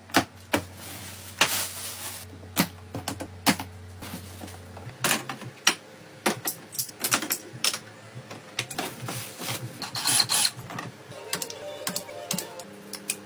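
Irregular sharp clicks, knocks and clinks, like hard objects or tools being handled, over a low steady hum that stops about five seconds in.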